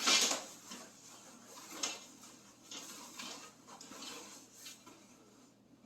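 Handling noises from working on the ice shelter's hub: scattered rustles and light knocks, the loudest right at the start, then a few more every second or so.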